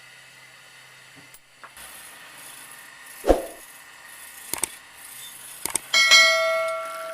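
A heavy knock, a few sharp metallic clicks, then a piece of metal struck once near the end and ringing with a bell-like tone that fades away.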